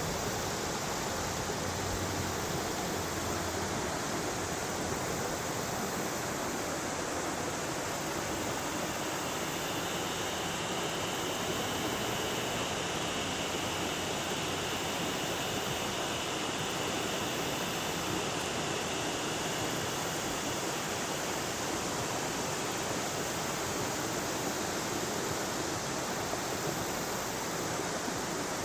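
River water rushing steadily over rocks, an even, unbroken wash of sound. A faint high, steady hum rises over it for about ten seconds in the middle.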